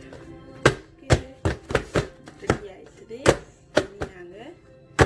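Aluminium foil pan of cake batter knocked down on a counter again and again, about nine sharp, unevenly spaced knocks, settling the batter and knocking out air bubbles.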